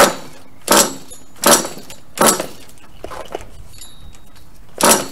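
Pull-starter on a nitro RC truck engine being yanked repeatedly: a string of quick rasping pulls, four in fast succession, then a weaker one and a last strong pull near the end. The glow-fuel engine turns over but does not catch.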